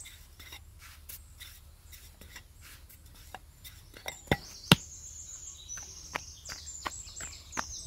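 A thin wooden rolling pin clicking and tapping against a wooden board as flatbread dough is rolled out, with two sharp, louder knocks a little past the middle. High chirping sets in from about halfway.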